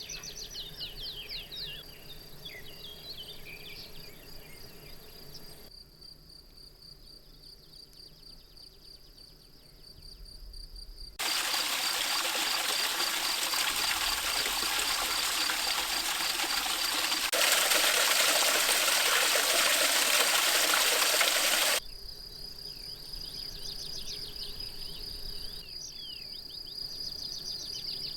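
Mountain nature ambience in edited segments: a steady, high insect trill, cricket-like, with bird calls over it at the start and end. In the middle, a loud, even rushing noise takes over for about ten seconds, with a step up in loudness partway through, and cuts off suddenly.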